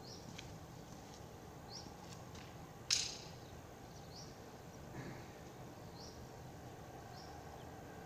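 A Barnett Jaguar recurve crossbow fires once, about three seconds in: a single sharp snap as the string releases the bolt, with a short ring after it. Small birds chirp faintly in short rising calls behind it.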